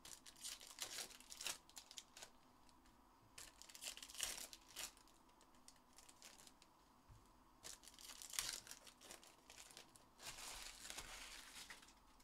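Foil trading-card pack wrappers crinkling and tearing as packs are ripped open and handled, in several short bursts with quiet gaps between.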